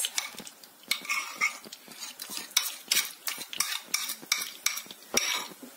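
Metal spoon scraping and tapping against a bowl in a run of irregular sharp clicks, as thick batter is worked out of it into a pan of hot melted butter, which sizzles underneath.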